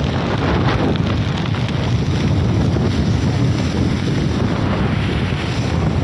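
Strong wind buffeting the microphone, with rough surf breaking on the beach underneath: a steady, loud rush of noise.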